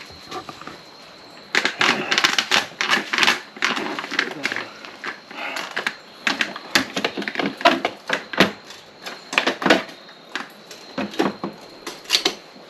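Rapid, irregular clicking and clattering of small parts and tools being handled during hands-on wiring work, starting about a second and a half in. A faint steady high-pitched tone runs underneath.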